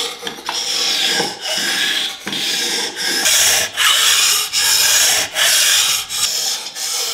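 Steel kitchen knife blade sliding back and forth across the coarse 1000-grit side of a water-soaked combination whetstone, held at about 15° by a clip-on angle guide. Each stroke is a scraping hiss, in a steady run of repeated strokes with short breaks between them.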